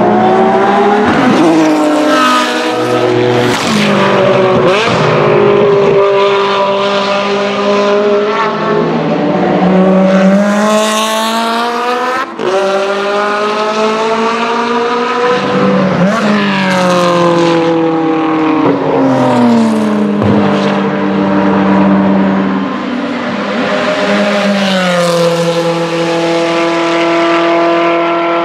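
Race car engines at full throttle on track, led by the Ferrari 360 GTC's 3.6-litre V8: the revs climb and drop back through a run of quick upshifts, the pitch falls away as cars go past, and near the end one engine holds a steady high note as it pulls away.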